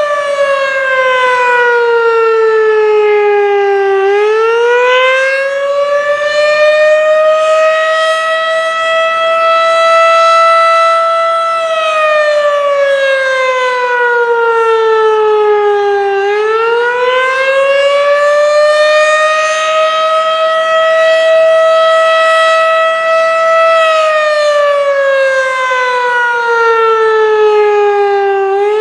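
Federal Signal Model 3 electromechanical tornado siren sounding the attack signal: a loud wail whose pitch slides down for about four seconds, climbs back up, then holds before the next fall, repeating about every twelve seconds.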